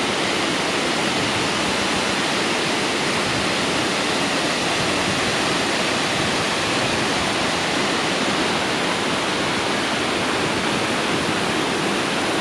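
Gollinger Waterfall: a loud, steady rush of falling water that does not change.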